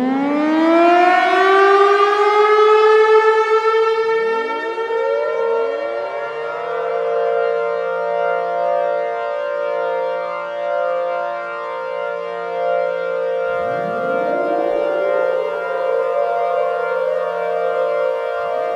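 Siren synth stacking many civil defense siren sounds, a Thunderbolt with a T-128/2T22 combination: one siren winds up to a steady high wail. Further sirens wind up and join about four, five and fourteen seconds in, and lower pulsing tones sound beneath from about six seconds.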